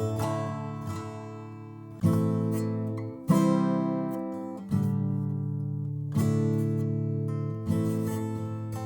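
Background music: acoustic guitar strumming chords, each new chord struck about every one to two seconds and left to ring and fade.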